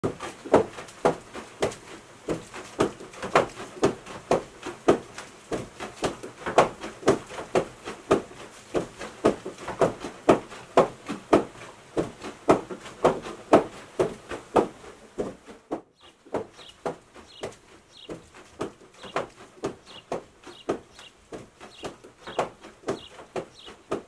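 Wooden hammers of a water-powered fulling mill pounding in a steady rhythm, about two knocks a second; a little over halfway the knocking drops to a fainter level.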